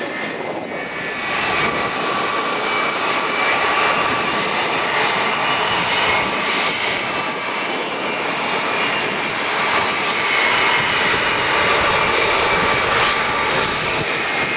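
Airbus A330 airliner's jet engines running, a loud steady rush with faint whining tones, growing a little louder about a second in.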